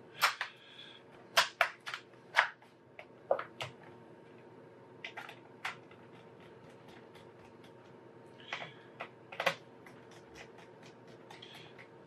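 Irregular sharp plastic clicks and taps as a laptop's bottom access cover is pressed and snapped into place and its screws are worked with a small screwdriver.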